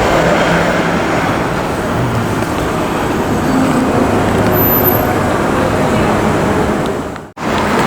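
City street traffic: a steady wash of passing vehicles with a low engine hum underneath. The sound cuts out abruptly for an instant near the end.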